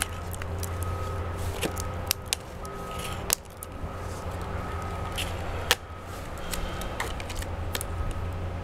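Clear PET plastic water-jug housing being handled, giving scattered light clicks and crinkles, the sharpest a little past three seconds and near six seconds, over a steady low hum.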